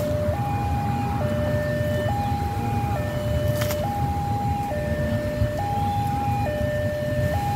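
Railway level-crossing alarm sounding its electronic two-tone warning, swapping between a lower and a higher tone about once a second and holding steady in level, the signal that a train is due. A low rumble runs underneath.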